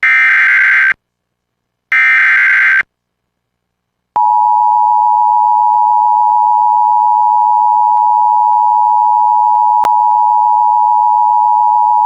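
Emergency Alert System signal: the last two of the three SAME header data bursts, each a loud electronic burst about a second long with a second's silence between, then, after a gap of about a second and a half, the EAS two-tone attention signal, a steady dual tone held for about eight seconds, with one brief click near the end. Together they open a National Weather Service severe thunderstorm warning.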